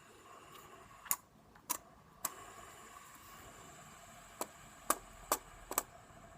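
Pens and a plastic fidget spinner being handled: about seven sharp clicks and taps at irregular intervals, over a faint steady hum.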